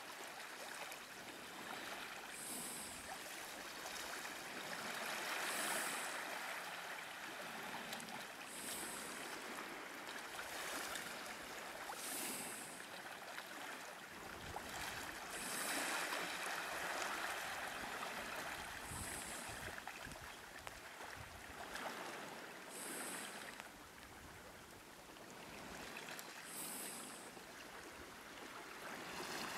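Small waves washing through a layer of slush ice at the shoreline: a soft, hissing slosh that swells about every three seconds as each wave comes in.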